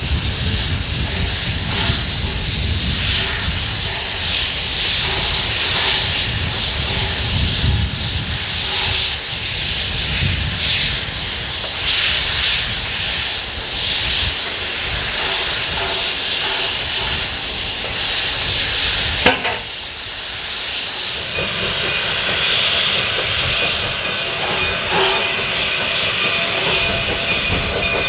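Standing coal-fired narrow-gauge steam locomotive hissing steadily, with a thin steady high whine over the hiss. A sharp click about two-thirds of the way through, after which the hiss drops and several faint steady tones come in under a working steam locomotive.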